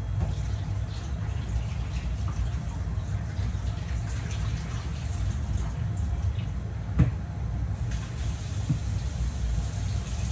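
Pot of water simmering on a gas stove: steady bubbling and rumbling, with a sharp click about seven seconds in and a brighter hiss joining a second later.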